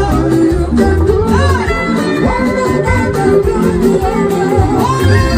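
Loud music with a pulsing bass line and sustained melodic lines.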